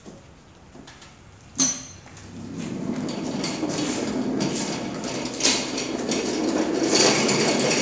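Hydraulic hand pallet truck being handled: one sharp metal clunk, then a growing metallic rattle and clatter with a few louder knocks.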